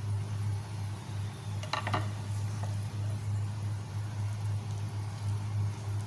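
A steady low hum, with two short clicks or taps a little under two seconds in.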